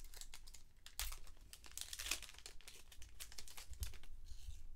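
Baseball trading cards handled by hand, flipped and slid over one another: an irregular run of light flicks and rustles, with a longer swish near the end.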